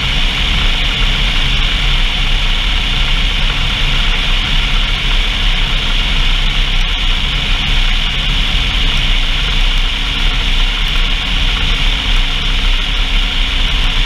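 A vehicle's engine running steadily under a constant hiss of noise, with no change in speed or load.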